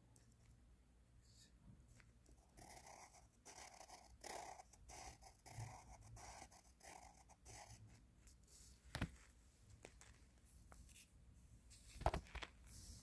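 Staedtler pencil drawing lines across paper: a run of short, faint scratching strokes. Two sharp knocks follow in the second half, the second one the loudest.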